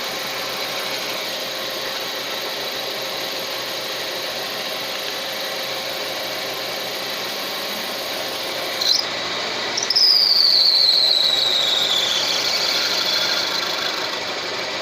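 Car engine running with a high-pitched whistle; about ten seconds in the whistle grows loud, then slides down in pitch and fades away over a few seconds. The owner says the whistle comes only under load.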